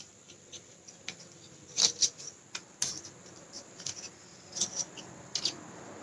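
Strips of young coconut leaf crackling and rustling as they are folded and pulled through one another in weaving, an irregular string of sharp crisp clicks and scrapes, loudest about two seconds in.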